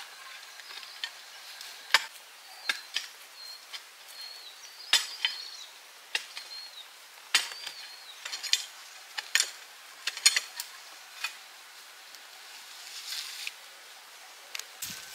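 Sharp knocks at an irregular pace, roughly one or two a second, with faint high chirping between them.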